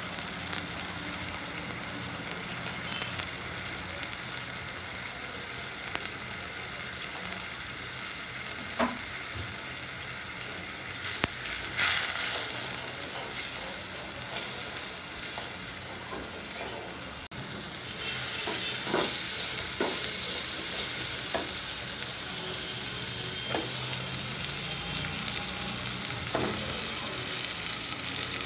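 Onions and spice powder sizzling in hot oil in an aluminium pot, stirred with a wooden spatula that knocks and scrapes against the pot now and then. About two-thirds of the way through the sizzle turns louder and brighter as raw chicken pieces go into the hot oil.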